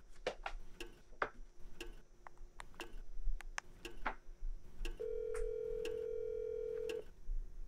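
Light clicks and taps for the first few seconds, then a phone's ringback tone, one ring about two seconds long starting about five seconds in: an outgoing call ringing at the other end.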